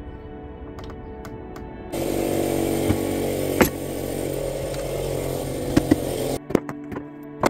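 A power tool runs loudly and steadily for about four seconds over background music, then stops, followed by a few sharp knocks.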